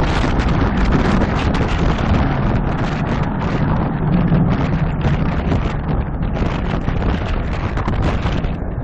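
Rockwell B-1B Lancer's four afterburning turbofan engines at full afterburner during takeoff: a loud, steady, deep noise whose higher part thins slightly toward the end as the bomber climbs away.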